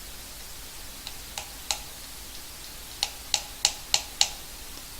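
A hammer tapping a small headless panel pin into an MDF board: three light taps, then after about a second's pause five more in quicker succession, each a short sharp click.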